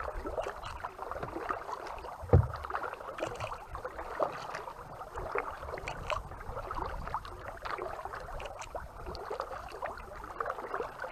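Kayak paddling: small splashes and drips from the paddle and water lapping against the hull, with one louder thump about two seconds in.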